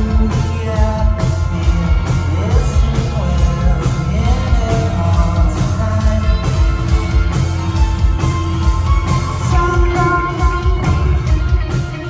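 Psychedelic rock band playing live: electric guitars, bass guitar and drums with a steady beat, and a sung vocal line, loud through the PA and heard from the crowd.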